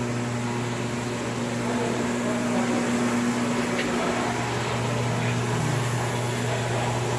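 2007 Nissan Maxima's 3.5-litre V6 running with a steady low hum, the noise the owner puts down to a timing chain problem.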